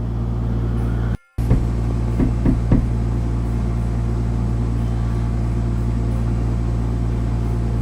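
A few light taps on a wall, about two seconds in, which the listener takes for a neighbour tapping on the shared wall, over a steady low hum. The sound drops out briefly about a second in.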